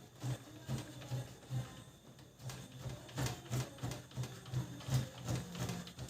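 A series of light mechanical clicks and knocks, about two or three a second with a short pause around two seconds in, from hands working parts inside a Brother MFC-7360 laser printer with its side cover off.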